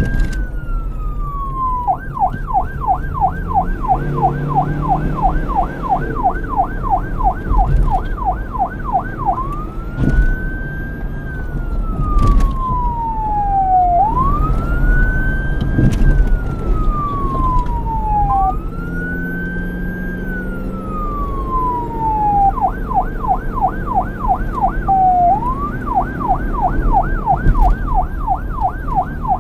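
Police car electronic siren switching between a slow wail, rising and falling over about four seconds, and a fast yelp at about three sweeps a second, over a low rumble.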